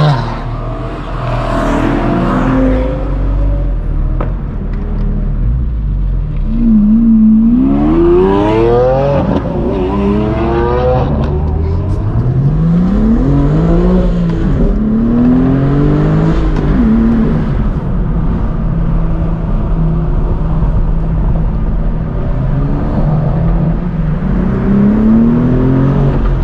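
Sports car engines accelerating hard, in several rising and falling sweeps of engine pitch. The strongest pulls come about seven to eleven seconds in, over a steady low drone of engine and road noise.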